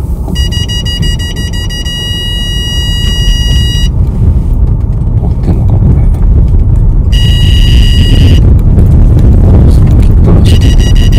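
Vehicle on the road, a low rumble that grows steadily louder, with a high electronic tone sounding three times: for about three and a half seconds at the start, briefly in the middle and again near the end.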